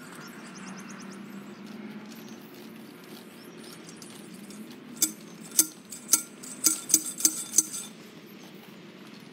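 Push rotary cultivator with metal tine wheels being worked through garden soil: about five seconds in, a quick run of sharp metallic clinks for under three seconds, over a steady low hum.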